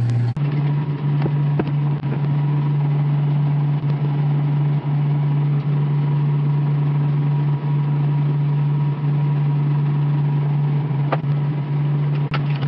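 A steady low hum runs unbroken, with a few faint clicks and taps over it.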